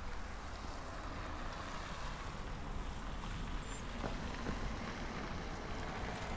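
Steady hiss of car tyres on wet asphalt, swelling and easing, over a low wind rumble on the microphone.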